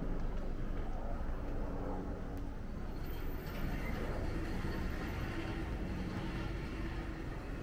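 Street ambience: a steady low rumble with faint murmur of distant voices, no distinct event standing out.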